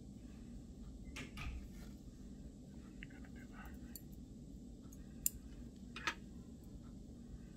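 Faint handling noise and a few sharp clicks from metal surgical instruments, a needle driver and forceps, passing suture through a balloon. The two sharpest clicks come near the end, under a second apart.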